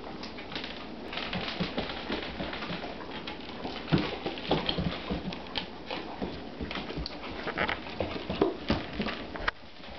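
Greyhound puppy eating kibble off a hardwood floor and pushing a rubber Kong toy around: irregular clicks and knocks of claws, kibble and the toy on the wood, with a sharper knock about four seconds in.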